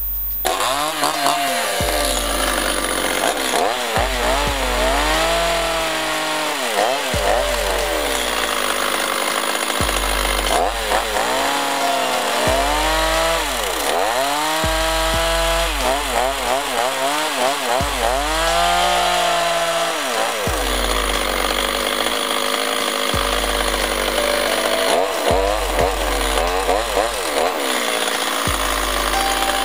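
Echo CS-350TES top-handle chainsaw's two-stroke engine running at high revs while cutting into a block of wood. Its pitch dips as the chain bites in and climbs again every couple of seconds.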